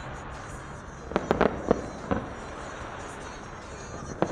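Aerial fireworks going off in a rapid volley of sharp bangs about a second in, then another cluster of bangs near the end, over a steady background rumble.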